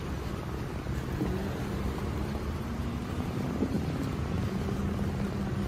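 Outdoor traffic rumble, with the low steady hum of a vehicle engine setting in about a second in.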